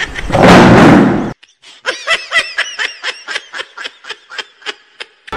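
Added comedy sound effects: a loud, noisy boom lasting about a second, then a quick run of short, high squeaky chirps, about four a second, each rising and falling in pitch.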